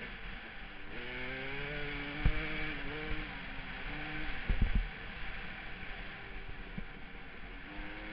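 Dirt bike engine running under load on a trail, its pitch rising and falling as it is revved and shifted, with wind rushing over the helmet microphone. A few loud knocks cut in about two seconds in and again around four and a half seconds.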